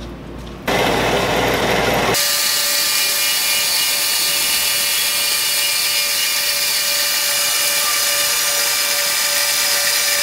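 Jet horizontal metal-cutting bandsaw running steadily as it cuts through a steel pipe, a constant machine whine. It is preceded by a louder, harsher noise for about the first two seconds.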